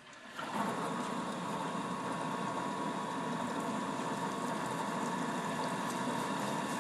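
A small motor-driven shop machine runs steadily for about seven seconds while the tractor's oil drain plug is cleaned, starting abruptly about half a second in.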